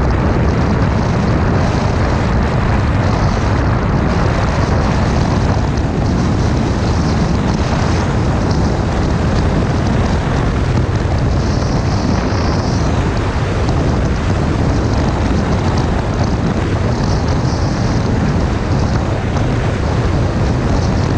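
Steady wind rush and engine drone of a KTM 390 Adventure's single-cylinder engine cruising at highway speed, about 115 km/h, with wind buffeting the microphone.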